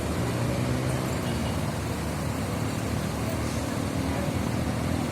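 Bus engine running with a steady low hum among street traffic noise; no telolet horn tune sounds.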